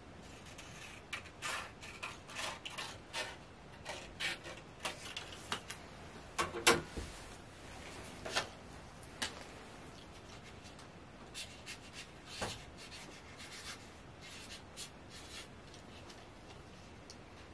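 Scissors snipping through a stiff note card in a run of short crisp cuts, with the loudest sound a knock about seven seconds in as the scissors are set down on the wire cage top. Later a felt-tip marker scratches and squeaks in short strokes as it writes on the card.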